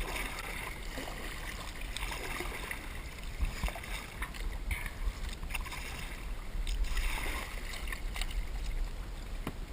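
Water splashing and sloshing around a kayak, with a few light knocks, over a steady low rumble of wind on the microphone.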